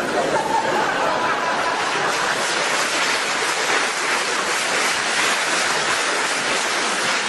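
Audience applauding and laughing, a steady dense wash of clapping.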